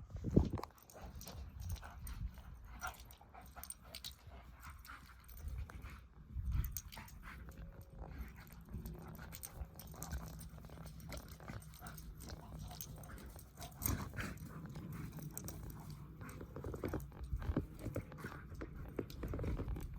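Faint sounds of a dog close by, with scattered small clicks over a steady low rumble.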